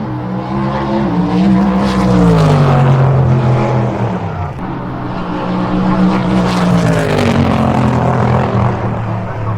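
Race car engine running loud at high revs, its pitch falling about two seconds in, climbing again and falling once more near the end.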